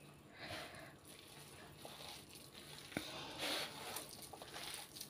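Faint, soft squishing and rustling of a hand mixing moist shredded cooked chicken in a ceramic dish, in a few separate strokes, with one light click about three seconds in.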